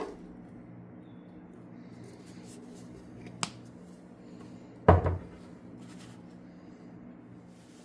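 Workshop handling noises over a steady low hum: a sharp click about three and a half seconds in, then a louder short knock with a smaller one right after, about five seconds in, as of something set down on a hard bench.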